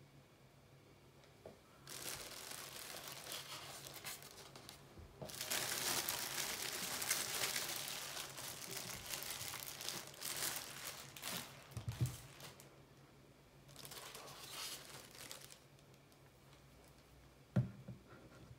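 Thin clear plastic bag crinkling and rustling as it is pulled off a small figure's chair, in several bouts, loudest in the middle. A dull thump comes about twelve seconds in, and a sharp knock near the end as something is set down on the wooden table.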